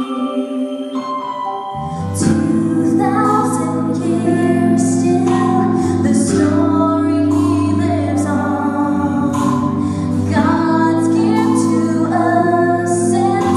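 Music with singing over a held instrumental accompaniment. The low accompaniment comes in about two seconds in, and the music gets louder from there.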